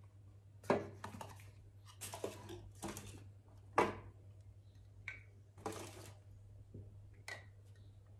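Hair tonic spray bottles and their cardboard box being handled: a string of about seven short knocks, clicks and rustles as a bottle is taken out of the box and the bottles are set down on and picked up from a glass tabletop, with a couple of light clinks near the middle and end.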